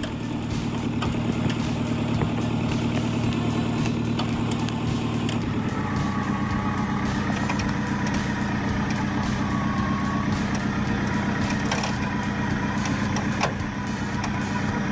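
Toyota Hilux pickup's engine running steadily under load while pulling a tree stump with a winch, with a few sharp cracks.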